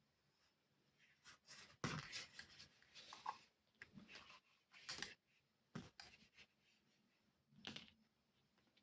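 Faint cloth wiping and rubbing on small desk items, in short strokes, with a few light clicks and taps as the items are handled.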